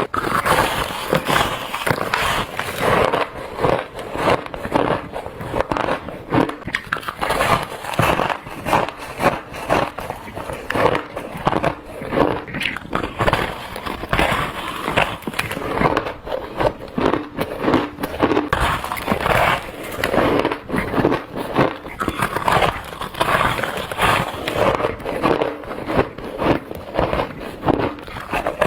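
Bites into squeaky, crunchy shaved ice: a continuous run of crunches and crackles, several a second.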